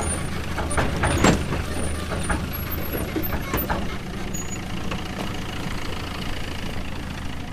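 Tractor engine running steadily with a low drone, with scattered clanks and rattles over it; one louder clank comes about a second in.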